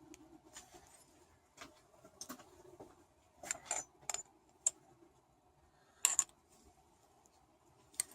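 Light metallic clinks and rattles of a cut piece of aluminum tubing and a hole saw being handled, in short scattered knocks with the loudest about three and a half and six seconds in.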